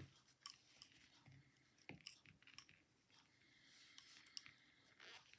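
Knitting needles clicking faintly and irregularly as stitches are worked, with a few sharper ticks among them.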